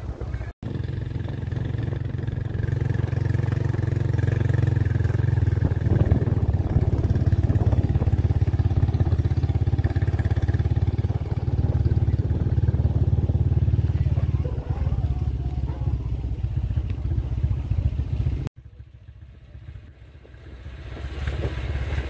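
Motorcycle engine running steadily as the bike is ridden along a rough dirt road, heard from on the bike. About three-quarters of the way through the sound drops away suddenly, and it builds back up near the end.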